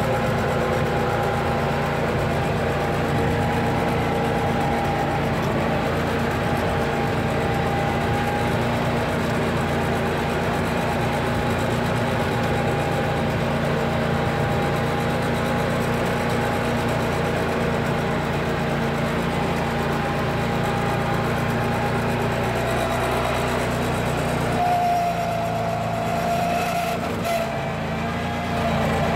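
Simplicity Legacy 4x4 garden tractor's Kohler 27 horsepower gas engine running steadily, with a steady whine over it. The pitch shifts about 25 seconds in.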